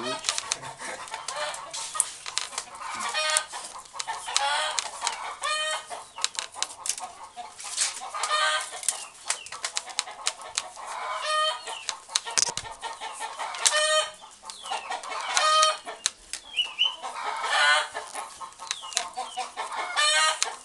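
Chickens clucking, a short call every second or two, with small clicks underneath.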